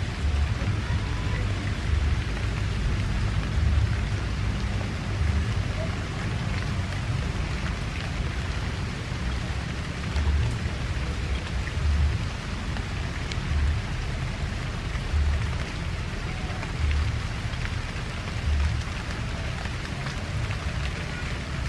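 Wind buffeting the microphone in low gusts every second or two, over a steady hiss.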